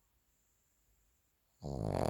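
Pekingese dog snoring in its sleep: a near-silent pause between breaths, then a loud snore starts about one and a half seconds in.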